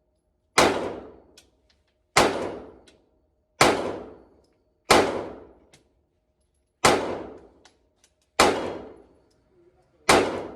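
Glock 26 9mm subcompact pistol fired in slow, steady single shots: seven shots, each about one and a half seconds apart, and each followed by a ringing echo that dies away.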